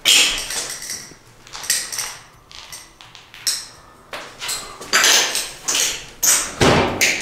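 Footsteps crunching over broken ceramic wall tiles and debris, the shards clinking and ringing at each step, a step every second or less.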